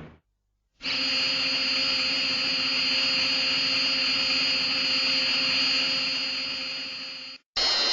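Showa-era Gigan sound effect: a steady mechanical whirring like a buzz saw, starting about a second in, holding unchanged for about six seconds, then cutting off, with a second burst starting right at the end.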